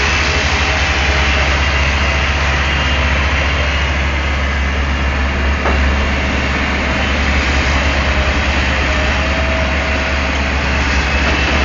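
Daewoo Solar 280 LC III crawler excavator's diesel engine running steadily with a deep, even drone.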